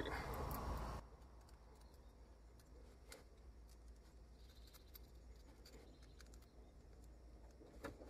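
Mostly near silence. A low background hum cuts off abruptly about a second in, leaving faint scattered clicks and taps from a toggle switch and its wires being handled, with one sharper click near the end.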